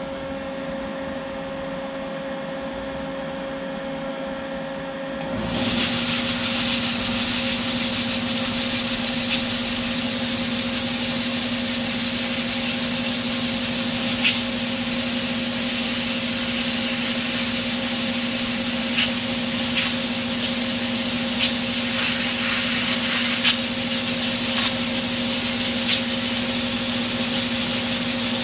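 A plasma cutter hums steadily, then about five seconds in its arc strikes. A loud, even hiss follows as the torch cuts through sheet steel, with a few faint crackles.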